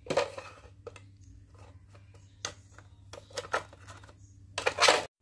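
Handling noise from a hand rummaging in a clear plastic drawer: scattered light clicks and rustles of small plastic and paper items, with a louder rustle near the end.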